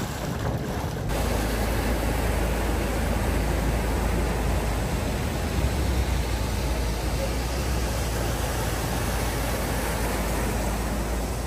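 Steady rushing noise of floodwater over a street, with a car driving through the water and throwing up spray. The noise starts abruptly about a second in, where the shot cuts, and holds even after that with a low rumble underneath.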